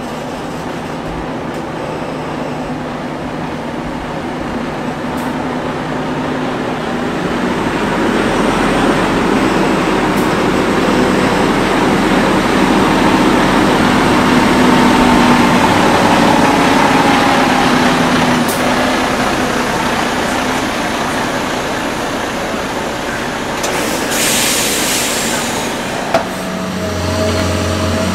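Heavy-haulage Mercedes-Benz Actros SLT tractor unit's diesel engine running as the truck pulls its multi-axle low-loader slowly past, growing louder toward the middle and then easing off. A short, sharp hiss of air sounds near the end.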